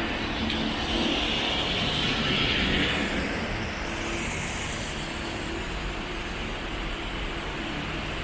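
Road traffic going by on wet pavement: a steady hiss of tyres and engines, with one vehicle swelling past between about one and three seconds in.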